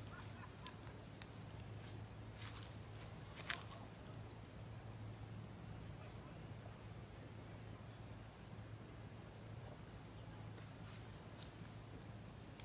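Steady high-pitched insect chorus with a few short crisp clicks, the loudest about three and a half seconds in, over a low steady hum.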